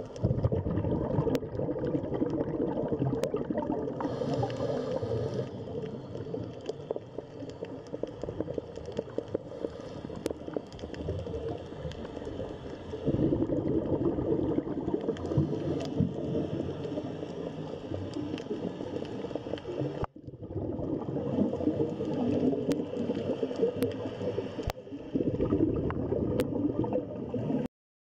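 Underwater ambience: muffled gurgling and bubbling water with occasional faint clicks, breaking off for a moment about twenty seconds in.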